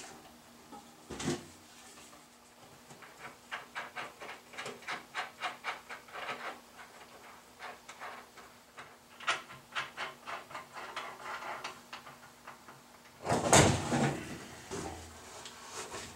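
Wooden two-by-four ramp boards being handled and taken down from under a ceiling-hung furnace. A long run of quick, light clicks and taps, several a second, is followed about thirteen seconds in by a loud wooden knock and scrape as a board comes away.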